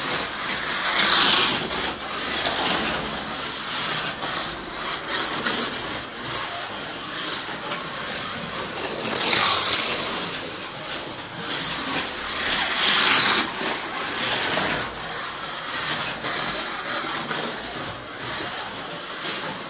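Scalextric slot cars running on a plastic track, their small electric motors whining and the cars rattling along the slots. The sound surges as a car passes close, about a second in, at about nine and a half seconds, and again at about thirteen seconds.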